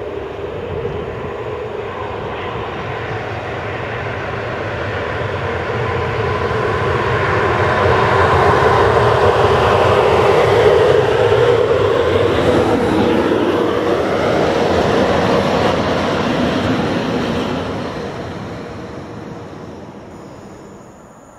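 Three ET22 six-axle electric freight locomotives coupled together and running light, with no wagons, approach and pass: electric motor hum and wheels on the rails. It grows to its loudest about ten seconds in, the hum drops in pitch as they go by, and the sound fades away near the end.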